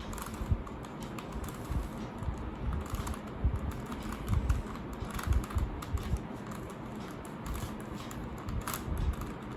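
3x3 Rubik's cube layers being turned by hand: an irregular run of plastic clicks and clacks as the final moves solve the last layer.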